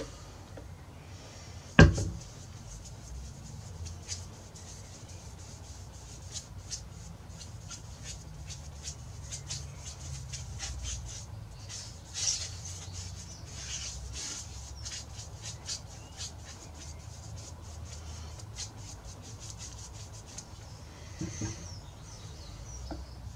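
Sanding sealer being worked onto a soft-wood guitar top: light rubbing strokes on the wood with scattered small scrapes and clicks. A single sharp knock about two seconds in is the loudest sound.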